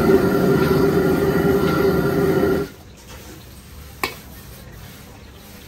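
High-pressure gas wok burner running loud and steady under a wok of stir-frying noodles, cut off abruptly about two and a half seconds in. After that, a quieter sizzle from the wok and one sharp metallic clack about four seconds in.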